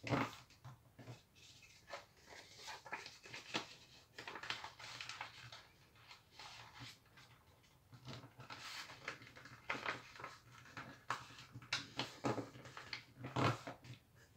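A sheet of A4 printer paper being folded and creased by hand, rustling and sliding on a wooden table in short, irregular rustles.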